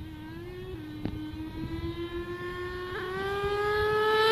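HPI Savage X's 4.6 cc nitro engine running at high revs, a buzzing, high-pitched whine. It grows steadily louder as the truck approaches, and its pitch climbs in steps as the throttle opens.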